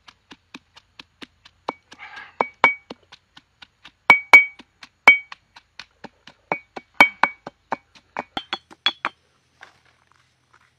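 Stone pestle pounding garlic in a stone mortar: a steady run of sharp knocks, about three to four a second, the harder strokes ringing with a short clink. The pounding stops shortly before the end.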